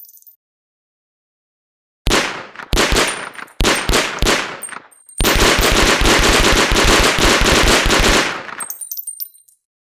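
MP 41 submachine gun firing: several separate shots, then a continuous full-auto burst about three seconds long. Faint high metallic clinks follow near the end.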